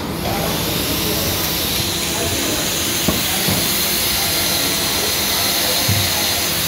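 Mixer-grinder universal motor under a no-load bench test, switched on and running at full speed with a steady, high whirring hiss.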